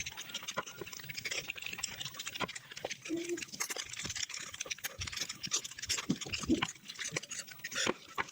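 Close-miked mukbang eating sounds sped up to five times speed: a rapid, dense run of wet chewing, lip smacks and mouth clicks, with a couple of short squeaky vocal-like blips.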